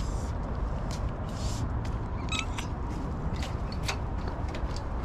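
Steady low outdoor rumble, with scattered short sharp clicks and taps.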